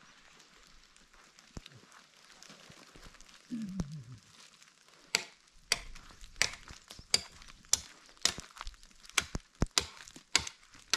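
A blade chopping into a wooden pole: about a dozen sharp strikes, roughly two a second, starting about halfway through.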